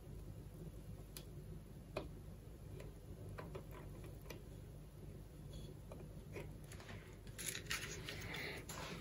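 Faint scattered clicks and taps of a soldering iron tip and pliers working wire leads on the terminals of a plastic enclosure. They come about once a second. Near the end a short, louder clatter of pliers being handled and moved.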